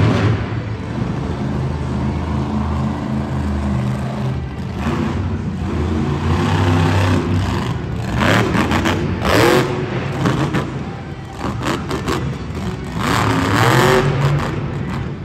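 Monster truck's supercharged V8 engine revving hard, its pitch climbing and dropping several times, most sharply around the middle and again near the end.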